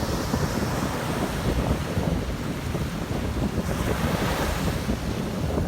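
Wind buffeting the microphone with a low, gusty rumble over surf washing on a shore; the hiss of the surf swells from a little past halfway.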